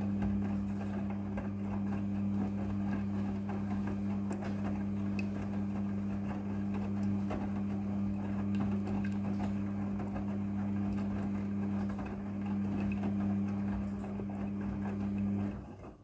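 Midea front-loading washing machine turning its drum in the wash cycle: a steady motor hum with the tumbling of wet laundry and small knocks. It cuts off suddenly near the end as the drum stops.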